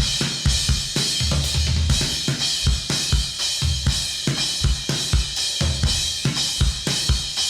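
Recorded drum kit playing a steady groove of kick, snare, hi-hat and cymbals, run through a Drip Electronics LA-2A clone tube compressor. The tubes give it a slight distortion or overdrive.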